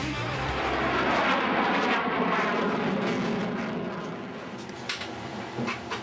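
Jet fighter passing overhead: a broad rushing engine noise that drops in pitch in the first couple of seconds, then fades away, with a few faint clicks near the end.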